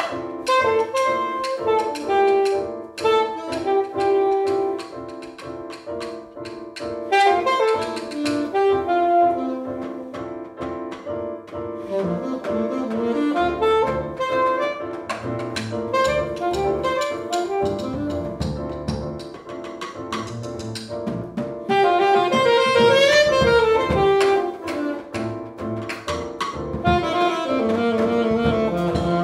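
Small jazz combo playing: a saxophone carries the melody over plucked double bass, drum kit with cymbals, and keyboard.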